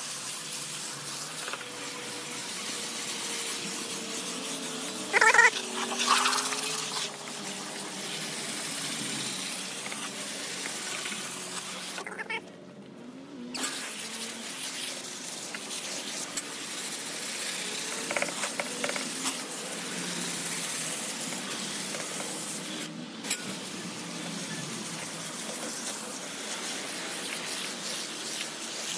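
Garden-hose spray nozzle spraying water onto an AC condenser coil, rinsing out foaming coil cleaner: a steady hiss of spray that stops briefly about twelve seconds in.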